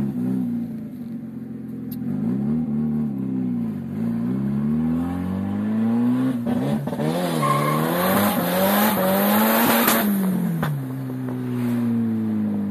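Turbocharged Volkswagen Gol GTI 16v four-cylinder engine heard from inside the cabin under hard acceleration. The revs rise and fall several times, then climb in one long pull with a loud turbo hiss that cuts off suddenly about ten seconds in as the throttle is lifted, and the revs drop away.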